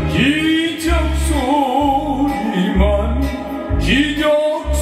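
Korean trot music: a backing track with a steady bass beat under a wavering melody, with a man's singing voice over it.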